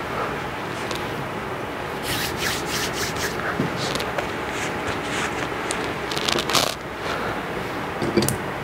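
Soft cloth rustling and scraping with a scatter of light clicks and taps over a steady room hiss, as a priest's hands handle a white linen cloth and small items on the altar.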